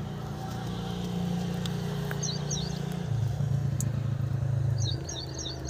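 A motor vehicle's engine running steadily, turning louder and lower for a couple of seconds from about three seconds in, with a few short bird chirps in the middle and near the end.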